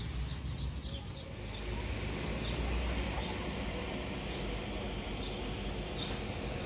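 Small birds chirping in a quick series of short calls during the first second, then steady outdoor street noise with a low traffic rumble.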